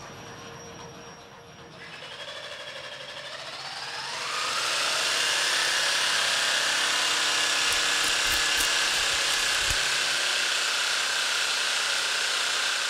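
A machine-like whine that climbs in pitch and grows louder over about two seconds, then holds as a loud, steady, harsh drone with several high tones, and cuts off suddenly at the end.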